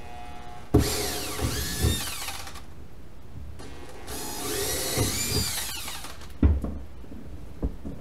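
Handheld power drill run in two bursts of about two seconds each, the motor's pitch rising and falling with the trigger, with a few short knocks in between.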